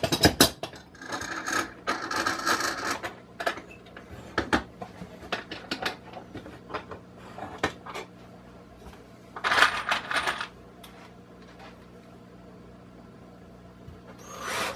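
Small metallic clinks and wooden knocks of screws and 2x4 lumber being handled during assembly, with two short stretches of denser noise about a second in and near ten seconds in. A faint steady low hum lies underneath.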